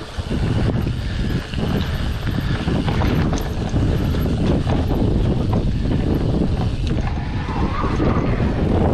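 Wind buffeting the microphone during a mountain-bike ride, over a steady low rumble with frequent short knocks and rattles from the bike on rough ground.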